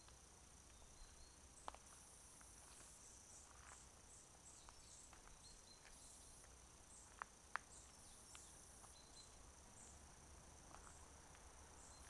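Faint chorus of insects, cricket-like: a steady high hum with short high chirps repeating throughout. A few sharp clicks, about two seconds in and twice about seven seconds in.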